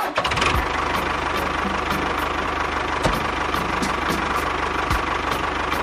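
Tractor engine running steadily with a fast, even chug.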